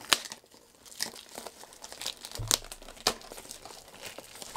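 Funko Mystery Mini blind-box packaging being torn open and crinkled by hand: a string of short, sharp crinkles and rips, the sharpest just after the start and again about two and a half and three seconds in.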